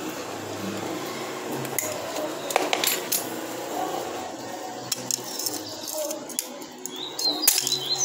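Scattered metallic clinks and clicks from a washing machine's suspension rod and coil spring being handled and clamped in locking pliers to stretch the sagging spring, with a cluster of clinks near the end.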